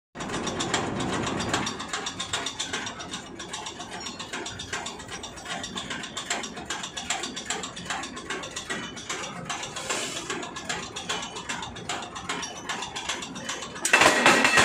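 Belt-driven three-shaft press machine with an electric motor running, its mechanism clattering with rapid, even clicking. Just before the end it suddenly gets much louder.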